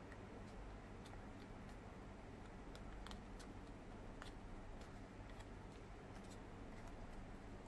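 Faint ticks and crackles of origami paper being folded and creased by hand, scattered and irregular, a couple of them sharper about three and four seconds in, over a low steady hum.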